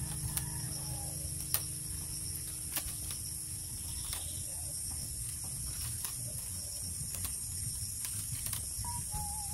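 Split bamboo strips clicking and rustling as they are woven by hand into a basket, with a few sharp light clicks scattered through, over a steady high hiss.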